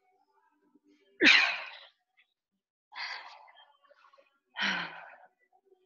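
A person's hard exhalations from exertion during push-ups and burpee-style reps: three forceful breaths out, about one every second and a half, the first and loudest with a voiced grunt.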